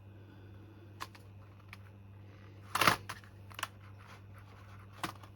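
Handling of a small plastic Bluetooth keyboard: a few sharp clicks, with a louder short clatter about three seconds in, over a steady low hum.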